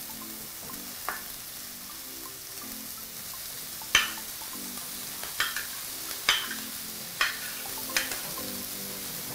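Onions and garlic frying in oil and butter in a stainless steel pan, a steady sizzle, as boiled chicken pieces are scraped into it off a ceramic plate with a plastic spoon. About six sharp clicks of the spoon knocking against the plate, the loudest about four seconds in.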